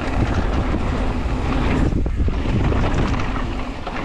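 Wind buffeting the microphone and knobby tyres rolling over a dirt trail as a mountain bike is ridden at speed, with steady small rattles and knocks from the bike over the bumps.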